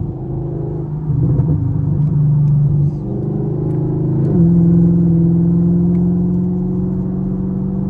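Chevrolet Camaro SS's 6.2-litre V8 running while driving, heard from inside the car with the windows up. The engine note holds steady, then steps up suddenly in pitch a little after four seconds in as the revs rise, and holds there.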